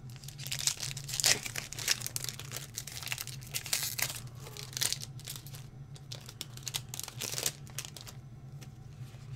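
Foil wrapper of a Pokémon TCG booster pack being torn open and crinkled by hand, in irregular crackling bursts that thin out after the first few seconds and return briefly near the end.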